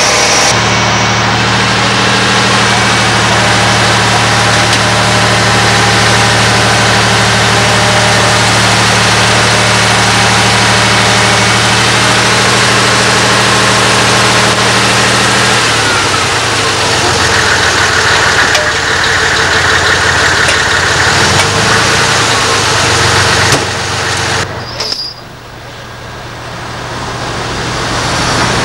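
Heavy truck diesel engine running at a steady speed, as the fire brigade's crane truck works. About halfway through the steady note gives way to a rougher, more mixed engine sound, and near the end the sound drops suddenly and builds up again.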